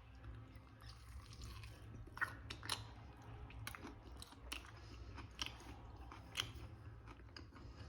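Someone biting and chewing a sauce-soaked chicken wing, faintly, with short sharp mouth clicks and smacks about once a second.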